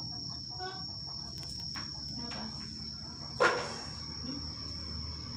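A steady high-pitched whine over a low hum, with one sharp knock about three and a half seconds in.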